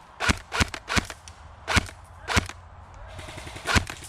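Airsoft guns firing single shots: about six sharp cracks at uneven intervals, three close together in the first second, then more spread out.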